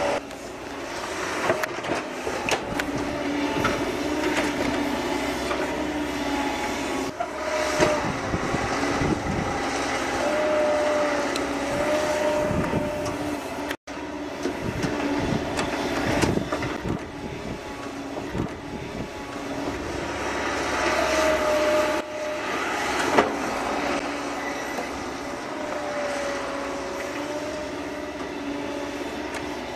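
Caterpillar M315 wheeled excavator at work: its diesel engine runs steadily under load while the hydraulics whine in short rising and falling notes several times as the boom and bucket move, with a few sharp clunks.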